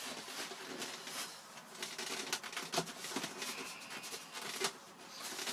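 Hands handling and pressing together the foam and plastic parts of a model jet: scattered light clicks, taps and rubbing, with a few sharper clicks.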